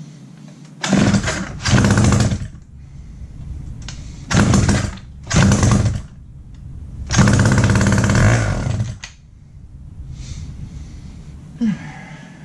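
Wright GS2016 gas-powered reciprocating saw engine being pull-started: it fires and runs for a moment five times, each short burst dying out. The last run lasts about two seconds before it stops, so the engine is catching but not staying running.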